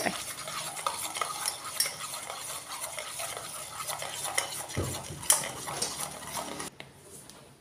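Metal spoon stirring butter into caramelized sugar in a stainless steel saucepan, scraping and clinking against the pan, dying down near the end.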